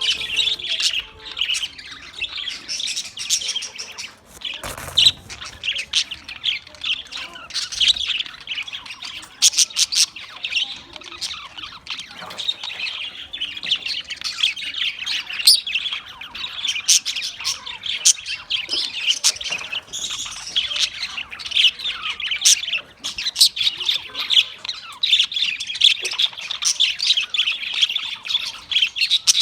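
A flock of budgerigars chattering continuously, many short chirps and squawks overlapping, with occasional sharp clicks.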